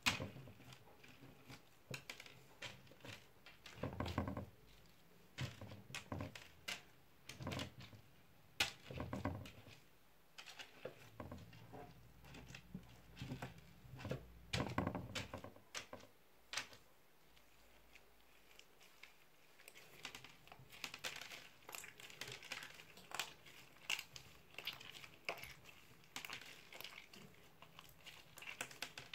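Green slime packed with foam beads and small coloured bits being squeezed and kneaded by hand, giving irregular soft crackles, clicks and squishes, with a few louder handling bursts.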